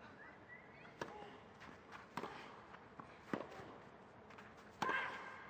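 Tennis rally on a clay court: about four sharp racquet strikes on the ball, a second or so apart, the last two the loudest. A short vocal sound comes with some of the hits.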